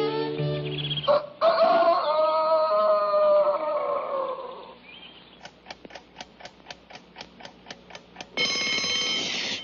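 Cartoon orchestral score with a sharp hit about a second in and a falling phrase that fades out. Then a clock ticks about four times a second, and an alarm-clock bell starts ringing loudly near the end.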